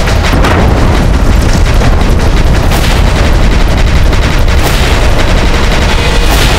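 Cannon bombardment: a continuous deep rumble of explosions with several sharp blasts about every two seconds.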